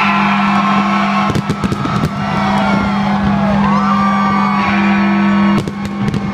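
Fireworks-display music with a loud, steady sustained low note, broken off briefly near the end. Over it come crowd cheers and a few sharp cracks of fireworks going off.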